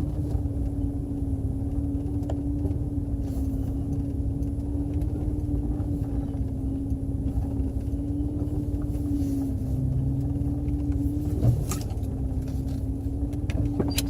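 Off-road vehicle's engine running steadily at low speed with a low rumble and a steady hum, and a single knock about two-thirds of the way through.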